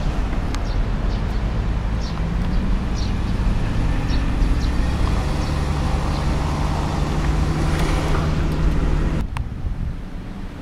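Car engine hum and road noise heard from inside a moving car: a low, steady drone under a rumble of tyres and wind. About nine seconds in, the noise drops off abruptly.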